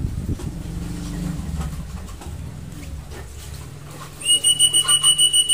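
Rapid electronic beeping from an alarm or beeper: short beeps at one high fixed pitch, about six a second, starting about four seconds in, over a low steady hum.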